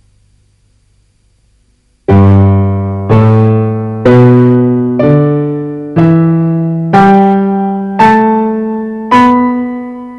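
Electronic keyboard in a piano voice playing a slow fingering exercise: after about two seconds of quiet, eight notes about one a second, each struck and fading, with the last left ringing.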